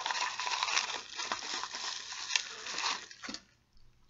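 Clear plastic wrapping crinkling and rustling in the hands as a shot glass is unwrapped from it, stopping about three seconds in.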